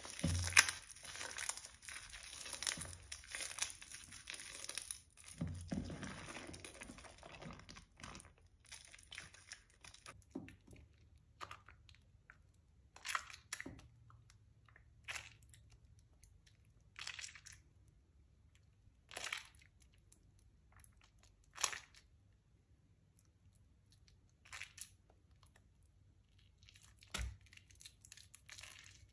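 Soaked, mushy Palmolive bar soap squeezed and crushed by hand in soapy water: wet squishing and crackling, dense for the first several seconds, then single squelches a second or two apart.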